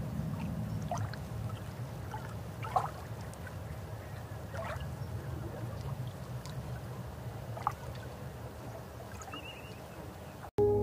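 Underwater water ambience: a steady low rumble with a few faint bubbling pops. Music starts right at the end.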